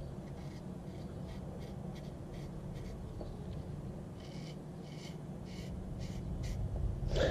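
Freshly sharpened folding-knife blade shaving hair off a forearm: a run of short, dry scratches, about two a second, testing the edge.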